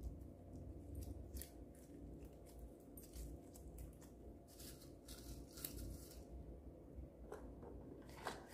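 Clear glitter slime being stretched and kneaded by hand, giving faint scattered sticky clicks and crackles, busiest about halfway through.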